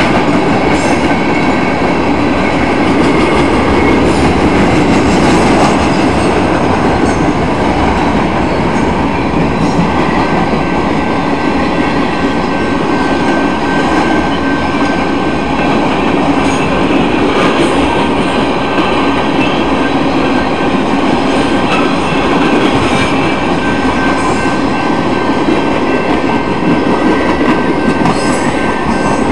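Train cars rolling past at a road crossing: a loud, steady rumble and clatter of wheels on rail, with thin steady high tones above it.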